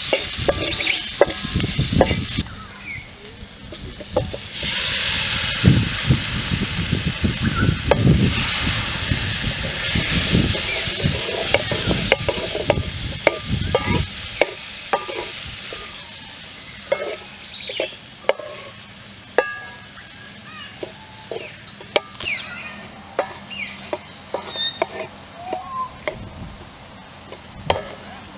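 Wooden spatula stirring and scraping food in a metal wok over a wood fire, with hot oil sizzling; the sizzle is loudest in the first half, then fades about halfway through, leaving scattered knocks and scrapes of the spatula against the pan as chunks of purple yam are stirred.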